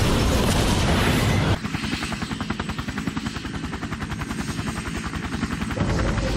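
Cartoon sound effect of a huge explosion, a loud rumbling blast. About one and a half seconds in it gives way to the rapid, even pulsing of a jet aircraft's engine as it flies overhead.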